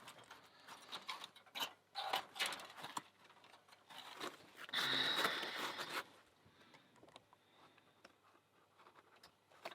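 Hands in rubbery drysuit gloves working tools on a padlock to take it apart, making short bursts of scraping and rustling. The longest burst comes about five seconds in and lasts about a second, and faint small ticks and clicks follow.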